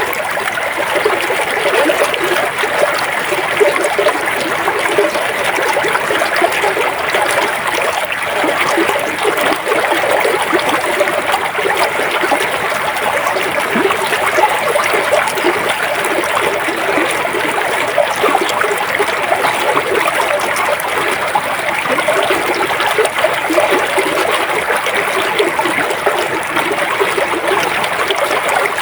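Flowing river: a steady, unbroken babble of running water with small splashes and trickles.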